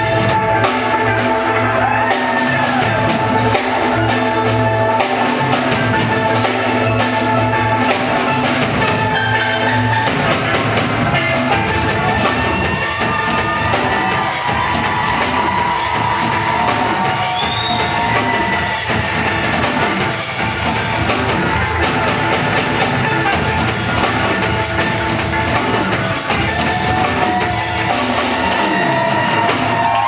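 Steel pan band playing: ringing pitched steel pan notes over a steady drum kit beat, with the bass line changing about ten seconds in.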